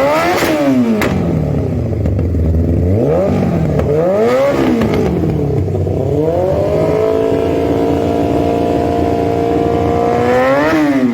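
Yamaha R1's inline-four engine through an SC-Project exhaust, revved in quick blips. It is then held at a steady high rev for about four seconds before a last blip and drop near the end. Sharp pops crackle from the exhaust as the revs fall in the first second.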